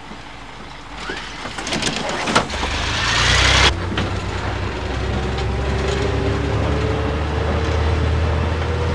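City bus sound effects: a few light knocks, then a loud hiss of compressed air that cuts off abruptly about three and a half seconds in. The bus engine then runs with a steady low rumble, its pitch rising slowly as it pulls away.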